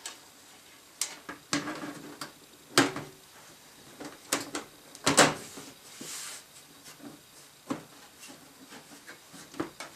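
Scattered clicks and knocks, with a short scrape about halfway through, as a PC case's side panel and fan cables are handled and the panel is slid into place.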